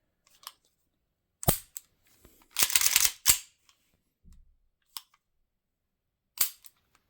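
Parts of a KWC-made 1911 air pistol being handled by hand as the slide is fitted. A sharp metal click comes first, then a short sliding scrape with clacks, then a few lighter clicks.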